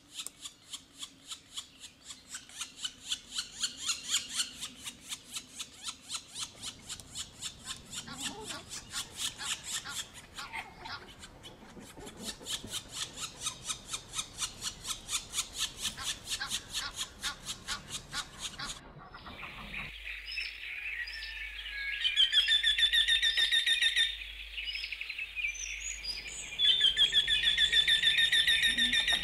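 Birds chirping: a fast run of repeated high chirps, about four a second. Then, about twenty seconds in, two loud warbling whistled phrases of a couple of seconds each.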